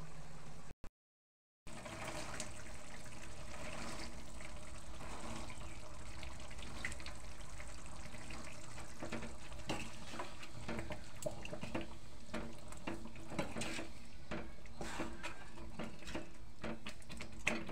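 Green peas and masala gravy sizzling in a pan on the stove, with scattered clicks and scrapes from stirring. The sound cuts out briefly about a second in.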